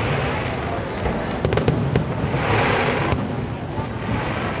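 Fireworks display: aerial shells bursting, with several sharp bangs about one and a half seconds in and another near three seconds.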